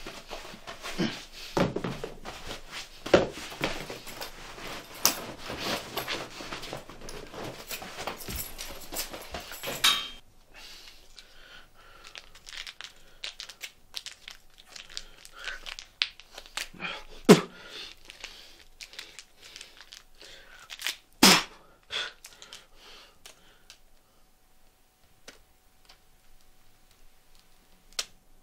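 A person handling things: close rustling and crinkling with many small clicks for about ten seconds. Then only scattered soft clicks, and two sharp knocks about 17 and 21 seconds in.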